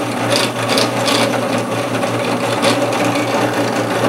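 Drill press motor running with a steady hum while a tapping-size bit is fed slowly into a polyethylene block. A few brief hissing sounds come through as the bit cuts.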